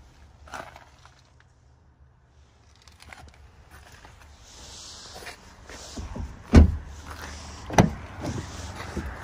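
A car door shut with a heavy thump about two-thirds of the way in, followed a second later by a second sharp thump.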